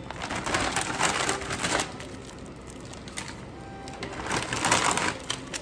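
Plastic instant-topokki packet crinkling as it is handled and shaken, in two spells of rustling, with quiet background music underneath.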